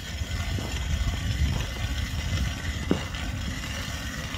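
Hand-cranked ice auger boring into lake ice: a steady grinding scrape of the spiral blade as the crank is turned, with one short sharp click about three seconds in.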